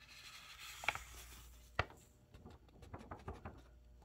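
Printed DTF transfer film and paper rustling and crackling as the sheet is handled and tilted, with two sharper crackles about one and two seconds in, then a run of small ticks and rustles.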